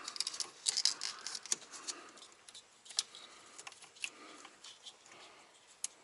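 Scattered light clicks and metallic rattles of hand tools and small fittings being handled while finishing the install of a truck's fan solenoid, busiest in the first second and a half, with a sharper click about three seconds in.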